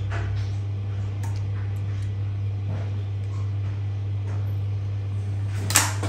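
Steady low hum, with a few faint clicks and a short noisy burst near the end.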